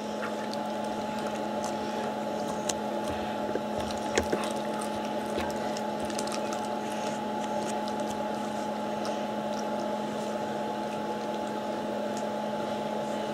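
A steady hum with two held tones, with scattered small clicks and smacks of a nearly toothless dog chewing and licking food from a stainless steel bowl.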